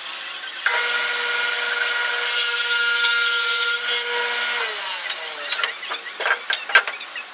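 Table saw cutting through a wooden board: the running blade's whine jumps much louder about a second in as it bites into the wood, and holds steady through the cut. Its pitch falls away near the end of the cut, followed by a few knocks of wood on the saw table.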